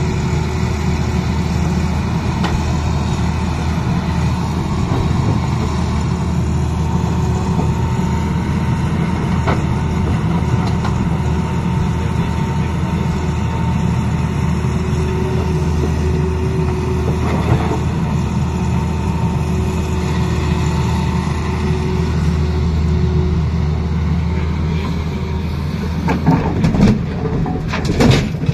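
Tata Hitachi Zaxis 220 excavator's diesel engine running steadily under working load. Near the end, several sharp clattering impacts as stones drop from its bucket into the steel body of a tipper truck.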